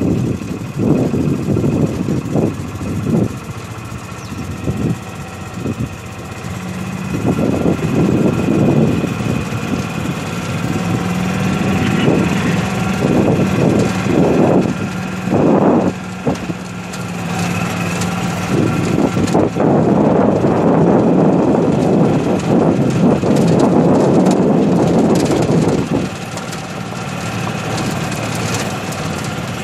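A vehicle engine running, with uneven low rumbling. A steady hum holds through the middle, and the sound is loudest for several seconds near the end.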